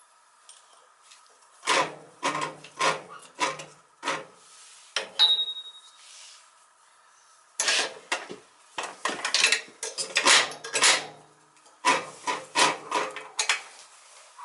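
Metal parts and hand tools clanking, scraping and rattling in irregular bursts, as work is done on the oil burner's housing and fan.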